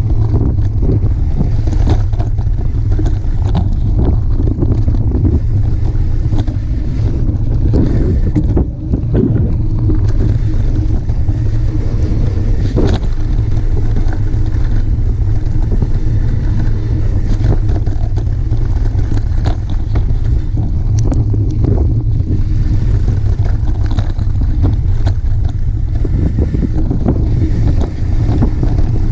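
Mountain bike descending a dirt singletrack fast: a steady heavy wind rumble on the camera microphone, with the knobby tyre running over the dirt and frequent short clicks and rattles from the bike over bumps.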